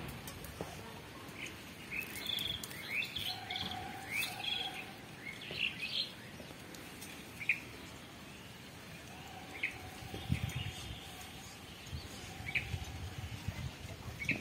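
Small birds chirping: a quick run of short, high chirps in the first half, then single chirps every two seconds or so.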